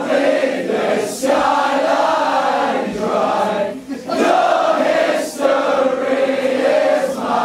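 Crowd at a rock gig singing a melody together, many voices in unison, in held phrases with short breaks between them.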